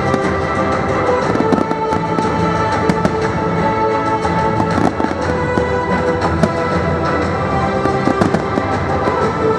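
Fireworks display going off: a rapid scatter of short bangs and crackles over the show's music, which holds sustained notes throughout.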